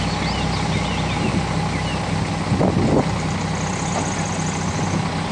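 Steady low engine-like hum with a constant background hiss, over which short high chirps come and go. A fast high ticking trill runs for a second or so past the middle, and a brief rustle comes at about three seconds.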